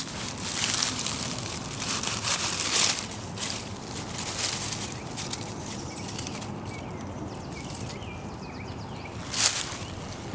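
Rustling steps through leaf litter and undergrowth over the first few seconds, then a quieter stretch with faint bird chirps, and one more sharp rustle near the end.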